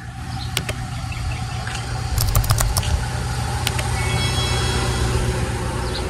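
A car engine running steadily, a low hum, with a few sharp clicks and knocks over it.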